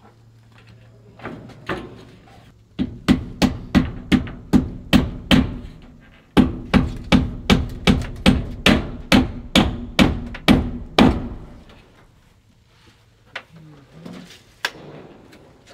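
Hammer blows in two quick, even runs of about three strikes a second, each with a slight ring. There is a short break about six seconds in, and the strikes stop about eleven seconds in.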